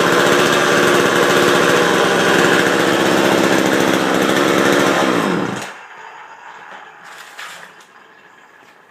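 Small two-stroke McCulloch chainsaw engine running steadily, freshly cold-started and with no bar and chain fitted, then shut off about five seconds in, winding down within half a second.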